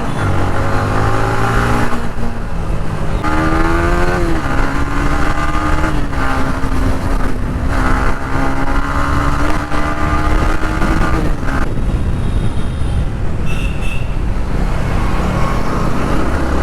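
Motorcycle engine under way in traffic, rising in pitch as it accelerates a few seconds in, then holding a steady note while cruising, with a brief high beep about two-thirds of the way through.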